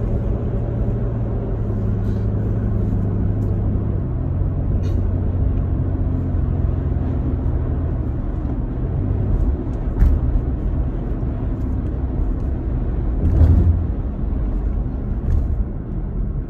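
Car engine and road noise heard from inside the cabin while driving: a steady low rumble, with a sharp knock about ten seconds in and a short louder bump a few seconds later.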